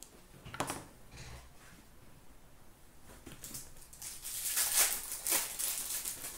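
Foil wrapper of a hockey card pack being torn open and crinkled: a dense crackling rustle starting about four seconds in and lasting about two seconds, after two brief soft rustles near the start.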